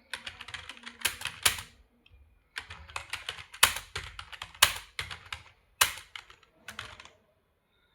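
Computer keyboard typing in quick runs of key clicks, with a few louder key strikes mixed in. There is a short pause about two seconds in, and the typing stops about seven seconds in.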